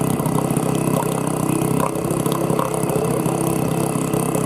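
Sharmax 4 hp two-stroke outboard motor idling steadily with its leg in the water, on its first break-in run from cold.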